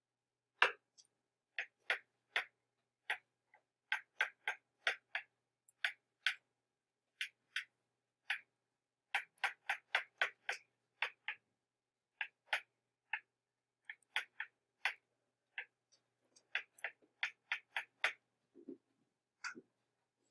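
Stylus tapping and clicking against a tablet screen while writing by hand: irregular light clicks, two or three a second, with short pauses and a soft, lower knock near the end.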